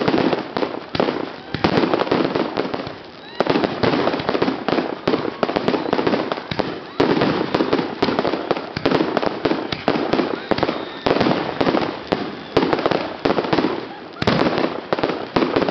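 Aerial fireworks firing in rapid succession from one spot, a dense run of launches and crackling bursts with only a brief lull about three seconds in.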